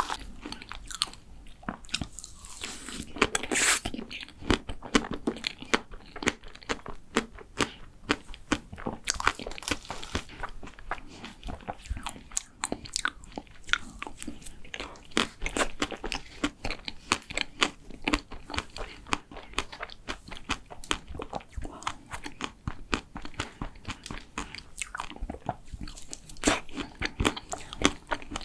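Close-miked chewing and biting of a chocolate macaron: a dense run of quick, crunchy mouth clicks.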